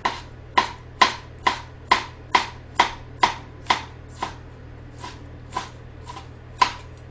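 Kitchen knife chopping pickled jalapeño peppers on a cutting board: a steady run of sharp knocks about two a second, with a short pause just after four seconds and mostly lighter strokes after it.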